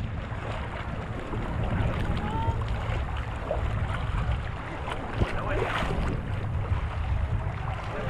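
Seawater sloshing and lapping around a camera held at the water's surface, with a steady low rumble of wind on the microphone and small irregular splashes.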